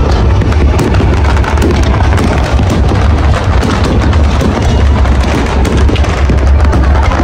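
Fireworks barrage: deep booms and rapid crackling overlapping without a break, very loud.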